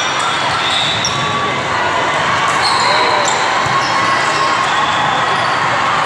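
Busy indoor volleyball hall during a rally: sneakers squeaking on the court now and then, balls being hit and bouncing, over a steady hubbub of players' and spectators' voices.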